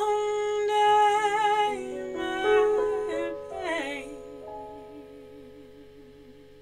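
Closing bars of a folk song: sung notes with vibrato over held keyboard chords, ending on one low wavering sung note that fades away.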